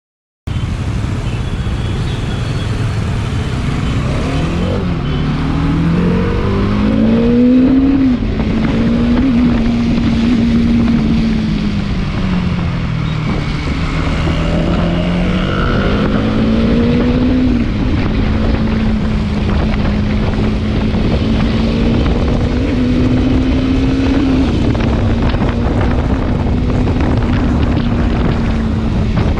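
Motorcycle engine on the move under heavy wind noise on the microphone: the engine note climbs over the first several seconds, drops back about halfway through, picks up again and then holds a steady cruise.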